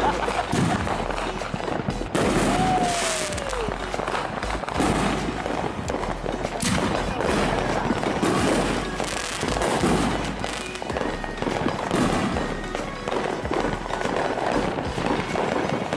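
Fireworks and firecrackers going off in a continuous crackle of pops and bangs, with one falling whistle about two and a half seconds in.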